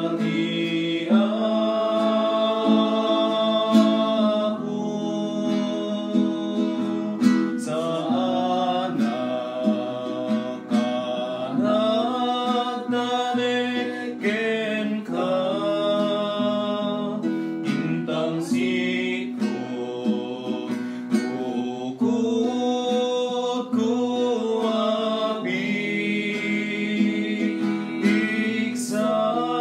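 A hymn sung to acoustic guitar accompaniment, the voice holding long notes over steady strummed chords.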